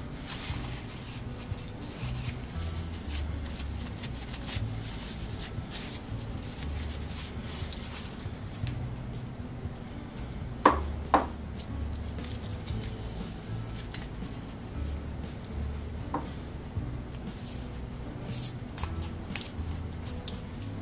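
Small metal blowtorch pump parts being handled on a paper towel: light clicks and rustling, with two sharp metallic clinks about halfway through. Quiet background music with a bass line runs underneath.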